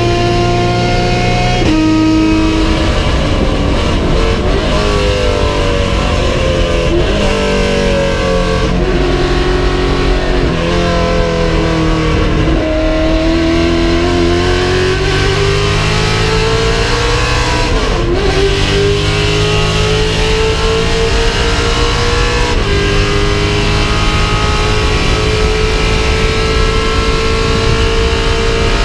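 Vintage racing car engine running hard on track, its pitch climbing and falling, with several abrupt steps like gear changes.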